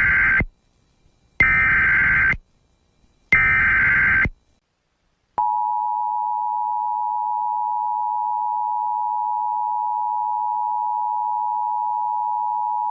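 Emergency Alert System header: three bursts of digital data tones, each about a second long, with the first already under way. About five seconds in, the steady two-tone attention signal begins.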